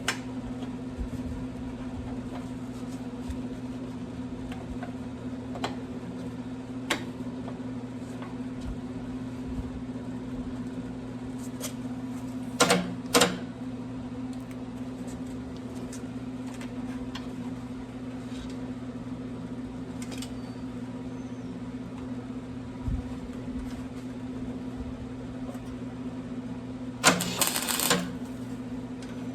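Steady electrical hum with scattered light clicks. A welder fires two short tack welds on the sheet-metal strut tower about halfway through, and a longer one near the end.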